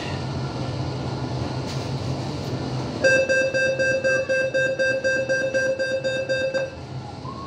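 Door-closing warning buzzer of a CPTM Line 12 commuter train, signalling that the doors are about to shut: a steady high buzz pulsing rapidly for about three and a half seconds, starting about three seconds in, over the low steady hum of the carriage.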